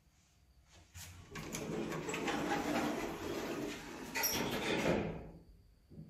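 Lift's automatic sliding doors closing: a click about a second in, then about four seconds of sliding noise that dies away.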